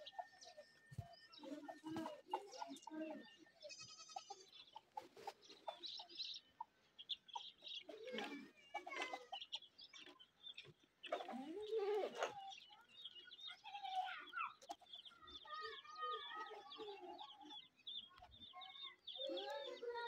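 Farmyard bird and animal calls: chickens clucking and small birds chirping in short, scattered calls, with a louder call about eleven seconds in.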